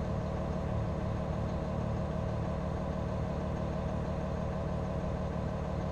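An engine idling steadily nearby, an even low hum that does not change.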